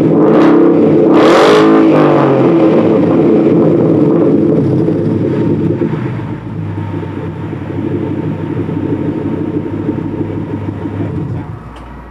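Ford Mustang 5.0 V8 with the mufflers deleted, revved hard a couple of times near the start, then falling back to a rough, steady idle about six seconds in, quieter near the end.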